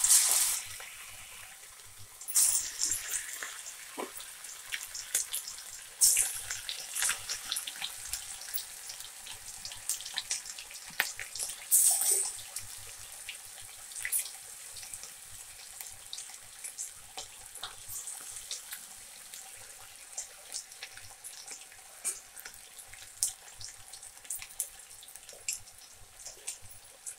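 Marinated chicken pieces deep-frying in hot oil in a kadai: a steady sizzle full of small crackling pops. It surges louder several times in the first half as more pieces are dropped into the oil.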